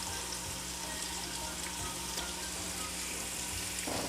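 Diced onion and garlic sizzling steadily in butter, olive oil and chicken juices in an Instant Pot on the sauté setting.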